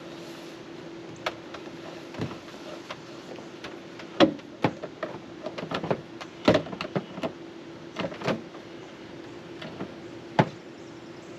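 Irregular sharp clicks and knocks of the motorhome's shore-power cord being pulled in and stowed, over a steady low hum.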